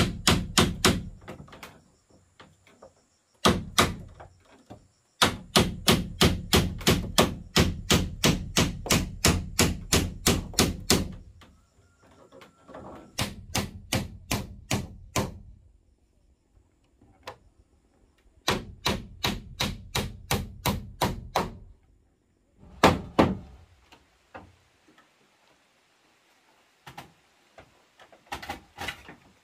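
Hammer driving nails into wooden railing slats: runs of sharp blows at about three to four a second, broken by pauses, with a softer run of taps partway through. A few faint wooden knocks follow near the end.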